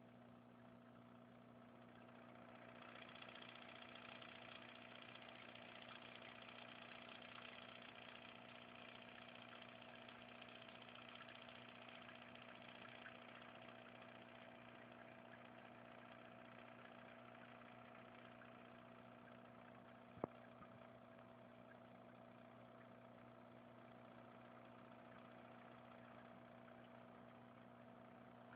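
Near silence: a faint steady hum with a light hiss, and a single sharp click about twenty seconds in.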